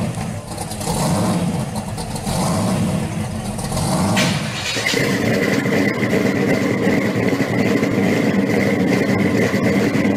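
Supercharged engine of a 1970 Camaro pro street car running at low speed with a rough rumble. About four seconds in the sound changes abruptly to a steadier hum with a held high tone.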